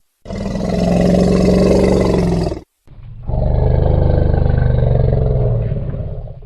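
Lion roaring: two long, deep, rough calls, the second longer than the first and fading towards the end.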